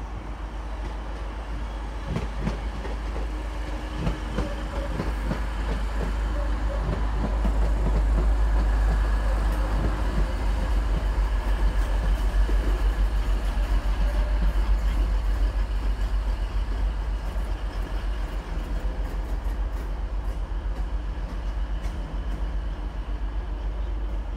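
A Class 185 diesel multiple unit runs in past the platform end, its wheels clicking over the points and rail joints. The noise builds to a peak about halfway through, then eases as the train draws away along the far platform.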